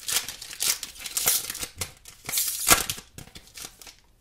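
Foil wrapper of a Pokémon trading-card booster pack being torn open and crinkled: a run of crackly rips for about three seconds, loudest near the end, then dying down to faint rustling.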